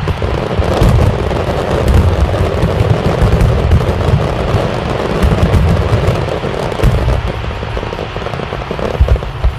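A loud, dense barrage of fireworks: deep booms run into one another, mixed with many sharp crackling pops.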